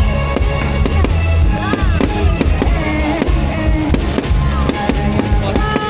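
Fireworks going off in a rapid string of bangs, over loud music with a heavy bass.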